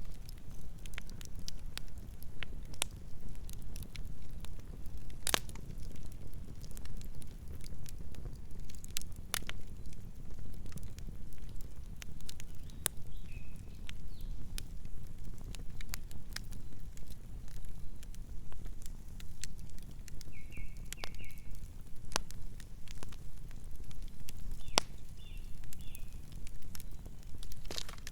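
Campfire crackling: scattered sharp pops and snaps over a steady low rumble, with a few brief high chirps now and then.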